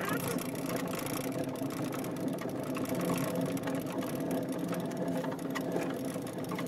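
Steady mechanical hum with faint light ticks inside a gondola cabin riding up the cable.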